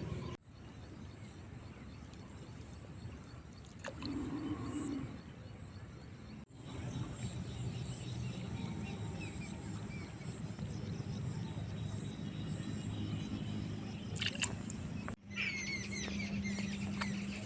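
Outdoor ambience: a steady low rumbling haze with a thin high hiss, broken by sudden brief dropouts three times, with a few birds chirping near the end.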